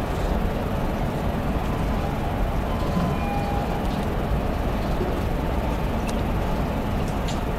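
Steady low rumbling room noise with no speech, and a few faint clicks near the end.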